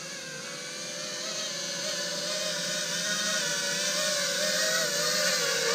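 FPV freestyle quadcopter's motors and propellers buzzing, a steady pitch that wavers slightly with the throttle and grows louder as the drone flies close.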